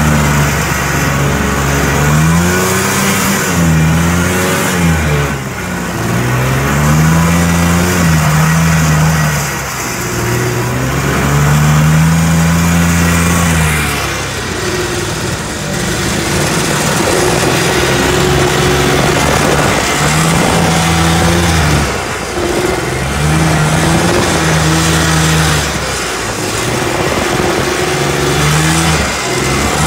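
Vintage John Deere snowmobile's two-stroke engine revving up and down over and over as it ploughs through deep powder, under a loud rushing hiss of wind and snow. From about halfway through, the engine note comes in shorter spurts and the hiss grows.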